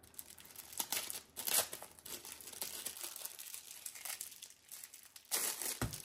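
Plastic packaging crinkling and rustling in irregular bursts as a diamond painting kit is handled and unwrapped.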